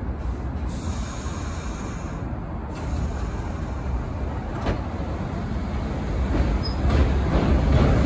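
New York City Subway R62A train on the 6 line pulling out of an elevated station, a steady low rumble of wheels and running gear on the track, with a few light clicks. It grows louder near the end.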